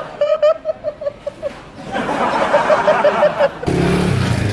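Laughter: two runs of short, evenly spaced chuckles. About three and a half seconds in, it gives way to street noise.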